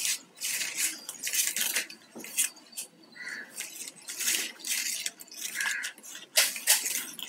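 Flat plastic craft wires scraping and clicking against one another in quick, irregular strokes as hands pull and tuck them into a knot.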